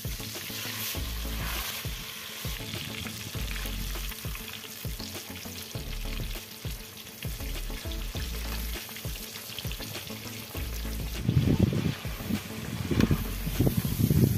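Food deep-frying in hot oil in an iron kadai, a steady sizzle and bubble, with a metal slotted spoon stirring and moving the pieces in the pan. Louder irregular knocks come in over the last few seconds.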